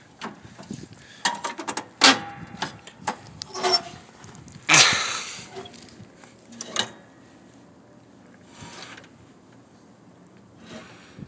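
Handling noise: a run of clicks, knocks and rubbing, with a louder rush of scraping noise about five seconds in, then only faint rustles. No engine is running.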